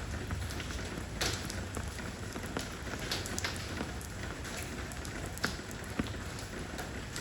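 Steady rain pouring onto stepping stones: an even hiss with scattered, irregular louder drops splashing.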